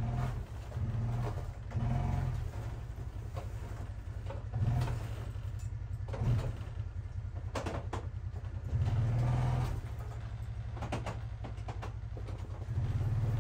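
Side-by-side UTV engine running at low speed, swelling in several short surges of throttle as the machine creeps forward. A few sharp knocks come in the second half.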